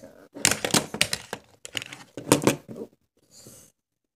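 Close handling noise of a walkie-talkie shoulder mic being fumbled and clipped on near the shirt collar: a quick string of plastic clicks, knocks and clothing rustle, then a short hiss.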